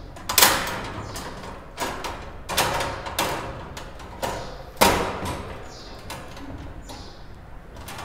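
Wire birdcage door clicking and rattling against the cage bars as it is worked loose and taken off, a handful of sharp metallic knocks spread over several seconds, the loudest about half a second in and again near the middle.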